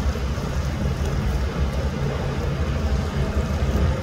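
Fire rescue boat's engines running as it cruises past, a steady low rumble.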